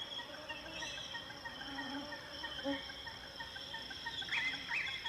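Insects chirping in a steady, high, continuous trill, with two short rising chirps about four and a half seconds in.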